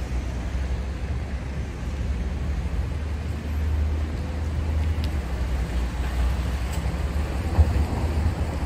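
Wet city street ambience: a steady low rumble of traffic with a faint hiss over it, and one brief low bump near the end.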